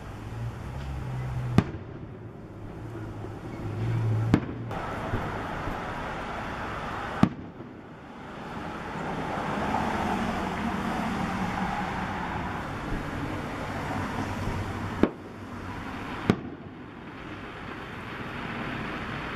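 Aerial fireworks shells bursting: five sharp bangs spread across the stretch, two of them close together near the end, over a continuous rushing background noise.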